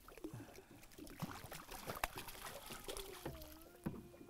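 Faint water splashing and dribbling as a trout is drawn alongside the boat and scooped into a landing net, with a few light knocks and clicks.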